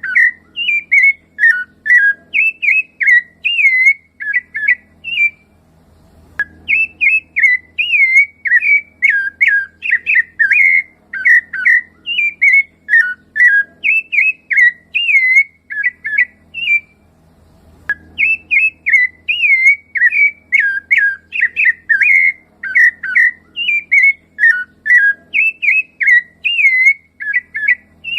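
Rufous-bellied thrush (sabiá-laranjeira) singing a long run of clear, fluty whistled phrases, several notes a second, with short breaks about five seconds in and again around seventeen seconds.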